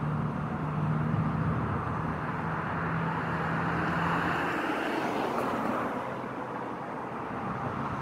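Street traffic: a motor vehicle passing by, its noise swelling to a peak about halfway through and then fading, with a steady low engine hum that stops about halfway.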